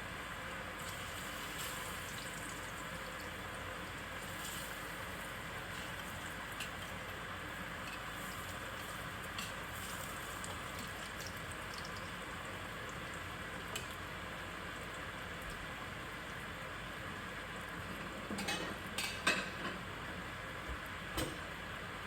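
Banana slices frying in hot oil, a steady sizzle throughout. A few short knocks and clatters sound near the end.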